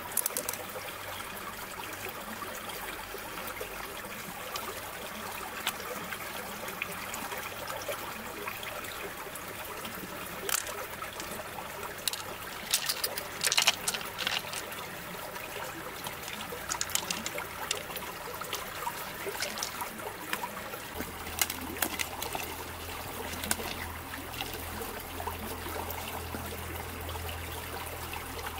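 Shallow stream trickling steadily over rocks, with scattered light clicks as pearls and mussel shells are handled, most of them in a cluster about halfway through.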